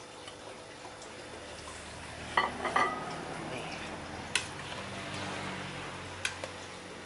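Metal ladle stirring soup in an aluminium cooking pot, clanking against the pot a few times. The loudest knocks come about two and a half seconds in, one ringing briefly.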